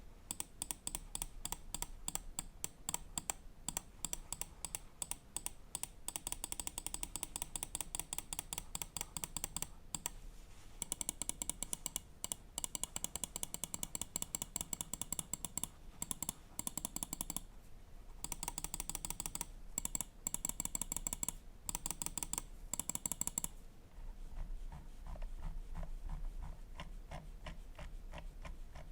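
Xtrfy M8 Wireless gaming mouse buttons clicking over and over in fast runs with short pauses, sharp and bright. About 24 seconds in the clicks turn softer and duller.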